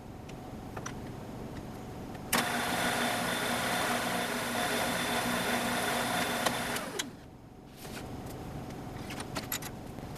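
CNC router's spindle motor switched on, running at speed with a steady high whine for about four and a half seconds while spotting holes with a center drill, then switched off and winding down. A few light clicks come before and after it.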